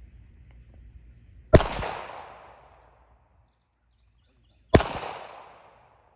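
Two gunshots about three seconds apart, each a sharp crack followed by an echo that dies away over a second or more.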